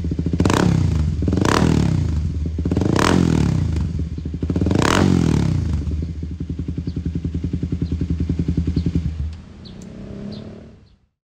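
Kawasaki Ninja 250 Mono single-cylinder engine through an R9 aftermarket exhaust, revved in four quick throttle blips over the first five seconds. It then settles into a pulsing single-cylinder idle, which stops about nine seconds in.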